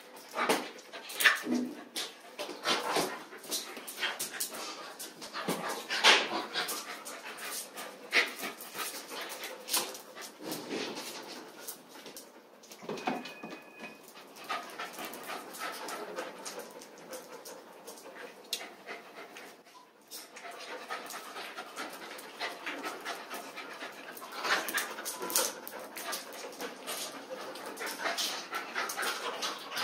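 Several dogs panting as they play, with many short clicks and scuffs of paws and claws on a tiled floor.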